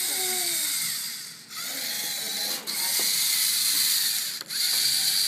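LEGO Mindstorms NXT robot's electric servo motors and plastic gears whirring as it drives, cutting out briefly three times between moves.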